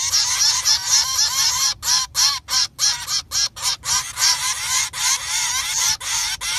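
A brood of young animals calling all at once in a loud, continuous clamour of rapid, overlapping rising-and-falling raspy cries, a few short pauses between bursts: begging as their mother returns.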